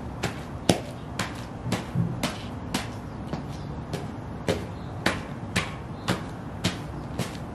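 Sheepskin Ugg boots stomping on a pile of loose magazines on concrete, a steady march of about two steps a second, each step a sharp slap and crackle of paper.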